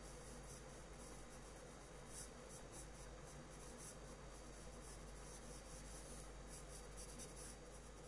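Faint, irregular scratching of a drawing tool stroking across paper, in quick runs of strokes, over a low steady hum.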